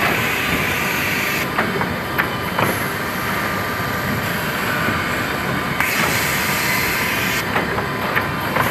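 Twin-motor automatic belt-feed multi-spindle woodworking boring machine running as panels are fed through it: a steady mechanical din with a high hiss that drops out twice, about one and a half seconds in and near the end, and several sharp clacks along the way.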